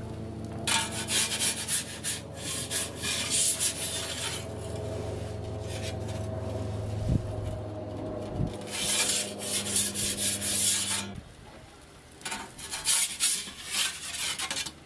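Perforated metal pizza peel scraping across the stone floor of an Ooni pizza oven in several strokes as pizzas are slid in, turned and lifted out, over a low steady hum that stops abruptly about eleven seconds in.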